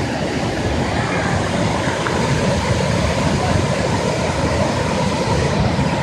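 Kravice waterfalls: many cascades of water pouring over a wide rock ledge into the river pool, making a steady, loud rushing sound.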